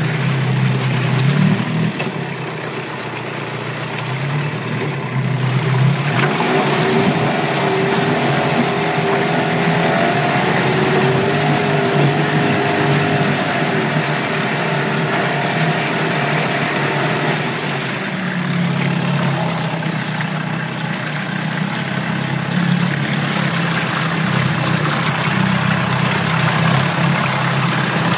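2006 Yamaha 15 HP two-stroke twin-cylinder outboard running in a test tank, its propeller churning the water. It idles, rises to a higher, steady speed about six seconds in, and drops back to idle at about eighteen seconds.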